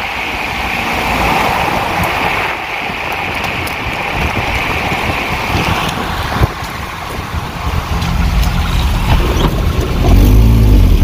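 A car driving on the road: steady road and wind noise, with a low engine rumble that grows louder over the last few seconds.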